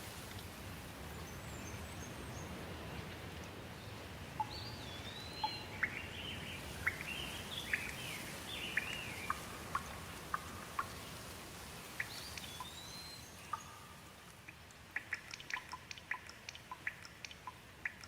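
Steady rain with birds calling over it in short rising and falling whistled notes from about four seconds in. Near the end the rain fades down and a quick run of sharp drips or ticks stands out.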